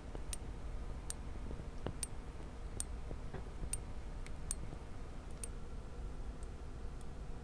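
Omnipod insulin pump's ratchet drive stepping under its shape-memory-alloy wire actuator, giving light, sharp clicks a little under a second apart. Each click is a ratchet step that advances the pump's piston, run far faster than the pump's normal rate of about one click per minute.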